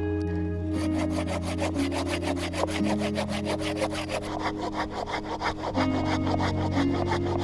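Folding hand saw cutting through a dry, weathered deadwood log in quick, even back-and-forth strokes, starting about a second in, over background music.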